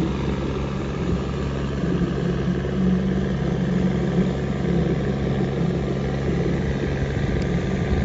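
Diesel tractor engines labouring under heavy load as a John Deere 5210 and another tractor pull against each other in a tug of war. The sound is a steady deep drone.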